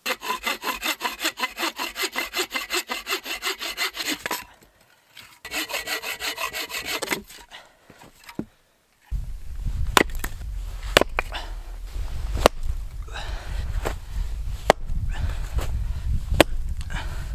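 Hand saw cutting wood for a campfire in quick, even strokes, about four or five a second, in two bouts with a short pause between. After about nine seconds the sawing gives way to a steady low rumble with a sharp click every second or two.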